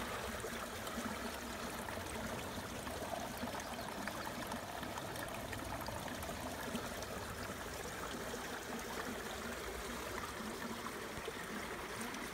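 Small brook flowing and trickling through gaps between shelves of ice, a steady rushing with fine splashy detail.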